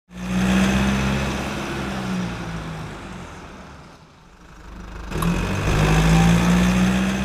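Car engine sound effect running in two swells: it comes in loud at the start and dies away by about four seconds in, then rises again about five seconds in.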